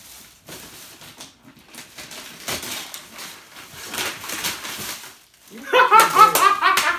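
Thin plastic shopping bag crinkling and rustling as it is pulled open. About five and a half seconds in, a man breaks into loud laughter, the loudest sound here.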